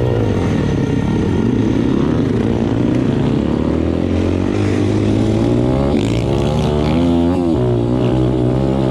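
M2R Racing pit bike's single-cylinder four-stroke engine accelerating, its pitch climbing through the gears with two upshifts, about six and seven and a half seconds in.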